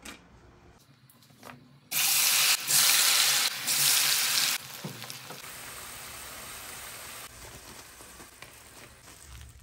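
Raw potato chips tipped into hot oil in a frying pan, sizzling loudly from about two seconds in, then settling after a couple of seconds into a steadier, quieter sizzle as they fry.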